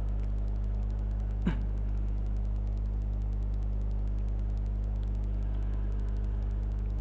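Steady low hum with no speech, and one brief short sound about a second and a half in.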